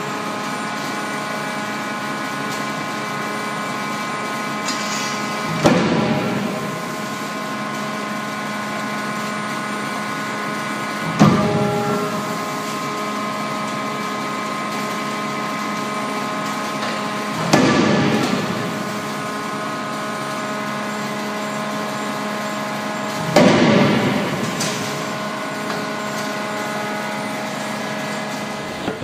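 Anyang 50 kJ CNC hydraulic die forging hammer striking hot steel: four heavy blows about six seconds apart, each ringing out briefly. Between them runs a steady machine hum with several fixed tones.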